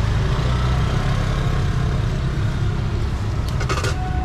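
Steady low rumble of street traffic and engines. Near the end, a quick run of light clicks from metal serving tongs against the pot and box.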